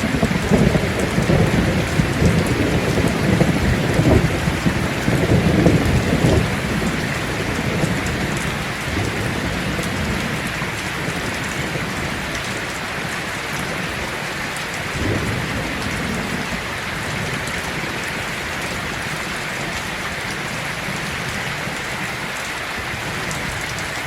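Heavy rain falling steadily on a tin roof, with thunder rumbling through the first several seconds and dying away, and a shorter, fainter rumble about two-thirds of the way through.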